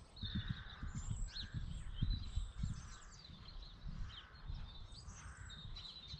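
Small birds chirping and twittering over gusty wind buffeting the microphone, which rumbles unevenly and is strongest in the first few seconds.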